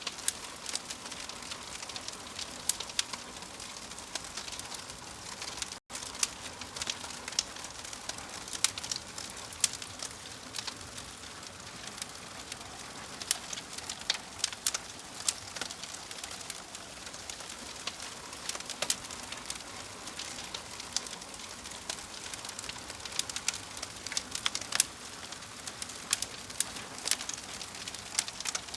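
Log fire crackling: a steady hiss with frequent sharp pops and snaps, broken by a split-second dropout about six seconds in.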